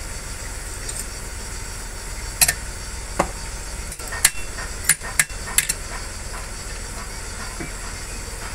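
Sharp metallic clinks, about six in quick succession in the middle of the stretch, from steel crankshaft parts, bearing caps and bolts of a six-cylinder diesel engine block being handled and knocked together. A steady hiss runs underneath throughout.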